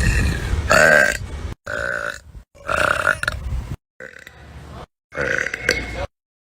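A young woman burping: about five short burps one after another, each cut off abruptly.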